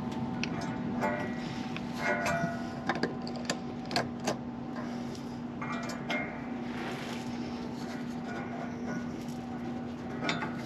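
Scattered metallic clicks and clinks, some with a short ring, as needle-nose pliers and a steel exhaust hanger spring knock against a stainless steel exhaust pipe and its hanger bracket. A steady low hum runs underneath.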